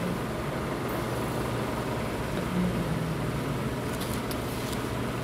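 Steady background noise of a restaurant dining room, an even hum and murmur, with a faint voice briefly in the middle.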